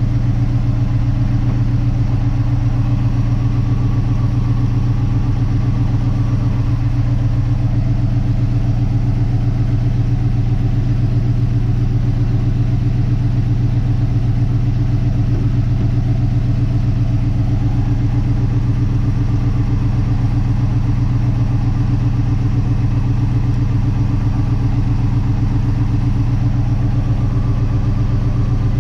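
1958 Dodge Coronet Lancer's V8 engine idling steadily.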